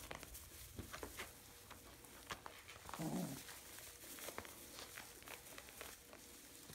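Puppies moving about on straw bedding: scattered light rustles and ticks of paws in the straw, with one short low sound about three seconds in.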